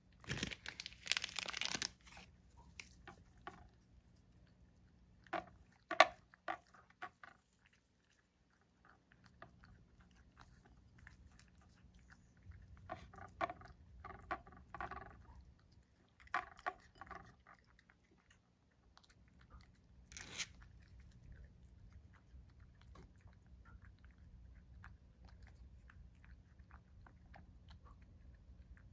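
A cat chewing and crunching chopped raw carrot and dried shiitake, in short bursts of crunching separated by pauses. It is quieter after about twenty seconds.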